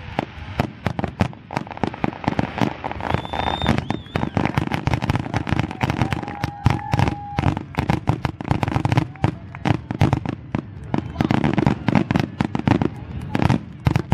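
A fireworks display going off in a rapid, continuous barrage of bangs and crackles. Two brief whistling shells sound among them, a high one about three seconds in and a lower one a few seconds later.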